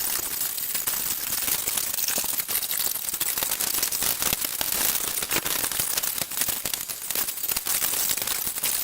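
Wrapping and packaging crinkling and rustling as a gift is unwrapped: a dense, continuous crackle of fast clicks that cuts off suddenly at the end.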